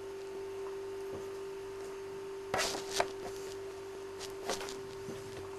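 Battery or electric toy train's motor running with a steady hum of one pitch as it pulls its coach, with a few short clicks about halfway through.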